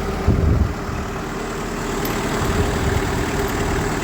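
Kubota M59 tractor-loader-backhoe's diesel engine idling steadily while it holds a load on its forks. A brief low thump about a third of a second in is the loudest sound.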